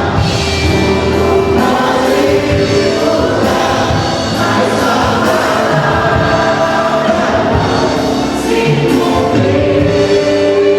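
Gospel worship music with a choir singing over a band.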